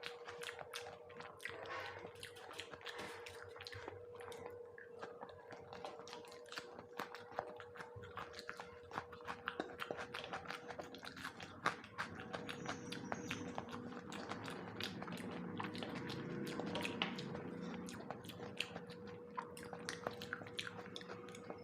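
Close-miked chewing of boiled egg: steady wet mouth sounds with many small irregular clicks, thicker and fuller about two-thirds of the way through. A faint steady hum sits underneath.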